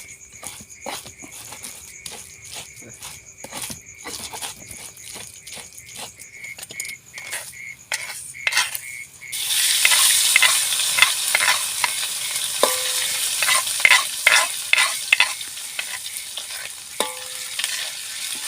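Food frying in oil in a pan, the sizzle starting suddenly about nine seconds in and carrying on with crackles. Before it, scattered clicks and knocks like utensils being handled.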